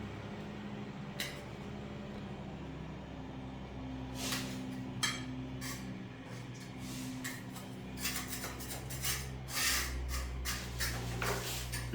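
Metal hand tool scraping and clinking at the toilet flange, in scattered short strokes that come thicker in the second half, as the old wax ring is cleared away.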